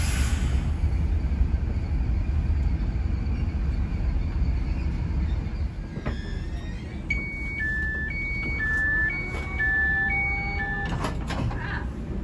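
Low rumble of a regional passenger train running and slowing into a station, easing about halfway through. About seven seconds in, the door's warning signal sounds: short beeps alternating between two pitches for about four seconds, then a few clicks as the door is released.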